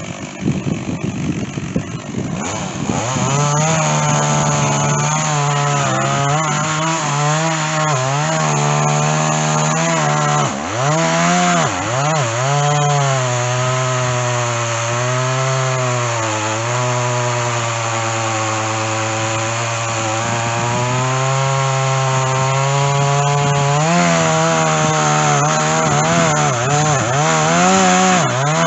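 Stihl chainsaw with a dull chain cutting through white oak. About two and a half seconds in it comes up to full throttle and runs under load, its pitch dipping and recovering several times as it bogs in the cut, most deeply near the middle.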